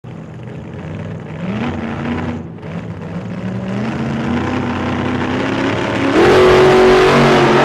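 Car engine running and revving: its pitch climbs in steps, then it revs up sharply and louder about six seconds in and holds high.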